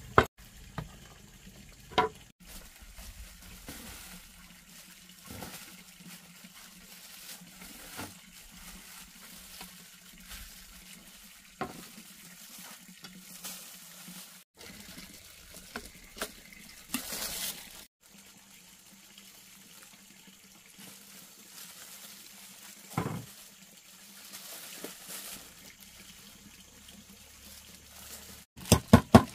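Faint water sounds, like pouring or washing in a basin, with scattered light taps and clicks and a short louder splash about two-thirds of the way through.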